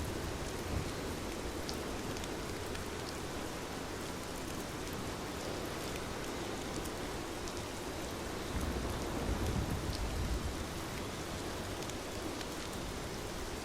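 Steady rain falling, a dense even hiss with scattered individual drop ticks. A low rumble swells and fades about two-thirds of the way through.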